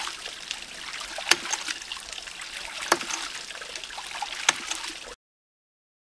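Hydraulic ram pump cycling: its waste valve shuts with a sharp click about every second and a half, over the steady splash of water spilling out of the valve. The sound cuts off suddenly about five seconds in.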